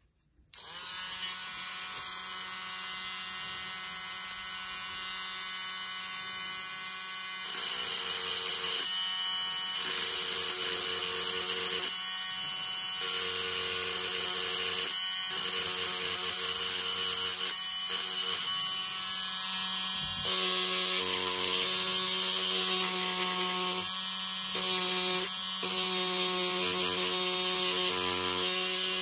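Small handheld rotary tool (mini drill) switched on about half a second in and running with a steady high whine, its tone shifting as the bit is pressed against the inner rim of a lens-mount adapter to grind away paint.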